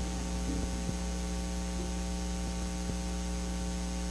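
Steady electrical mains hum, a low buzz with a stack of overtones, with a faint click or two.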